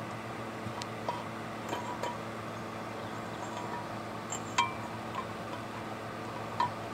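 A metal hub sleeve clinking against the boat propeller as it is fitted into the prop's bore: a few light metallic clinks with a brief ringing, the loudest about halfway through, over a steady low hum.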